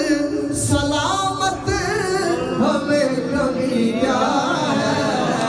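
A man sings devotional verse (rubaiyat and Punjabi kalam) into a handheld microphone, in a melodic line that glides up and down.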